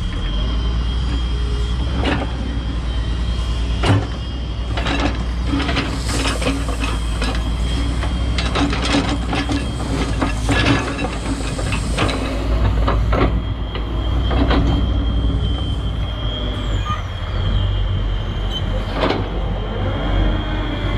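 Hitachi wheeled excavator's diesel engine running with a steady low rumble. Gravel crunches and clatters repeatedly under the machine, with sharp knocks through the middle stretch.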